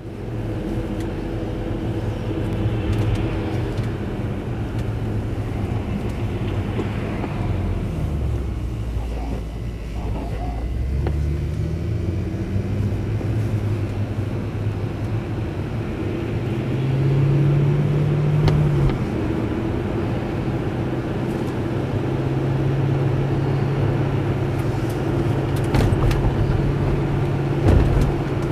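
Audi S8 engine heard from inside the cabin while driving, with tyre and road noise. The engine note drops about eight seconds in, climbs again a few seconds later, and then runs steadily.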